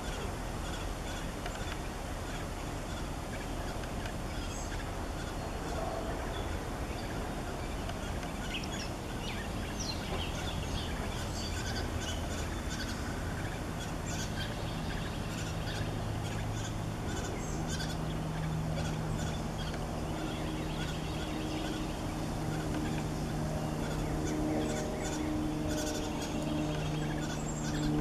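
Brown thrasher fledglings giving short, rapid, repeated begging calls while a parent feeds them at a suet feeder, thickest in the second half. A low steady drone comes in beneath them about halfway through.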